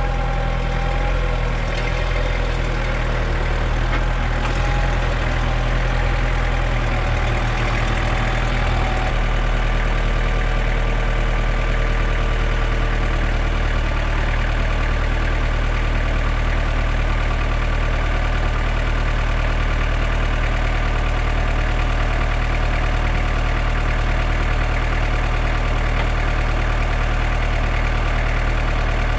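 Kubota tractor's diesel engine running steadily at idle, a deep even drone. A few higher wavering tones ride over it for the first nine seconds or so, then the engine note holds unchanged.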